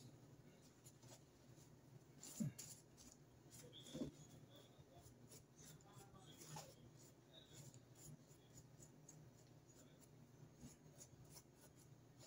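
Faint scratching, rustling and soft ticks of a brush and fingers working glue-soaked toilet paper onto a cardboard sleigh model, with two slightly louder soft bumps about two and four seconds in.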